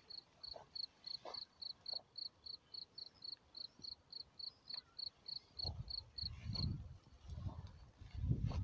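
A cricket chirping steadily in short, evenly spaced high chirps, about four a second, that stop near the end. Tall grass rustles and swishes as the dog and walker push through it, loudest in the last few seconds.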